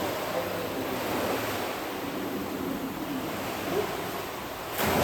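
Swimming pool water splashing and sloshing as a swimmer works through the water, with a sudden louder surge of splashing near the end.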